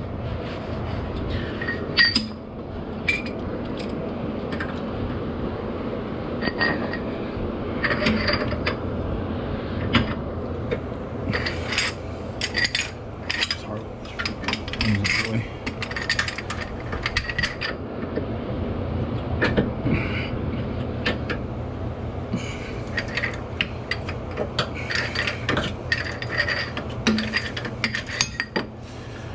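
Hand tools working the differential's mounting bolts with a 19 mm socket: irregular metallic clicks and clinks with runs of ratchet clicking, over a steady low hum.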